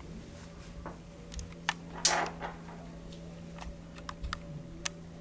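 Scattered light clicks and taps of handling, with a short scrape about two seconds in, over a steady low hum.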